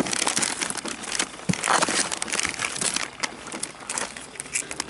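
Plastic soft-lure bags crinkling and rustling as hands rummage through a tackle box. The crackling is dense for the first three seconds, then thins to scattered crinkles.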